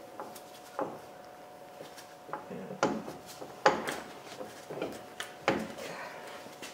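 Irregular metallic clunks and knocks, about six, from a front CV axle's inner joint being pulled and worked into place by hand. The loudest knock comes a little past halfway.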